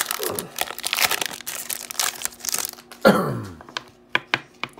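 A foil hockey card pack being torn open and crinkled by hand. About three seconds in, a short voice sound falls in pitch, followed by a few light taps as the cards are handled.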